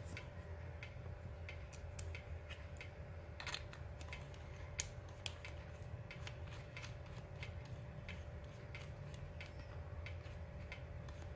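Light, irregular clicks and ticks of a screwdriver bit and small screws on the metal parts of an MK8 3D-printer extruder as a screw is driven in by hand, over a steady low hum.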